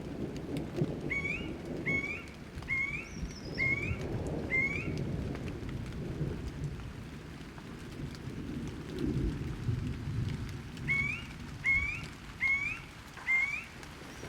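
Rain with low, rolling thunder. A bird calls over it in short rising notes: five in quick succession, then after a pause four more near the end.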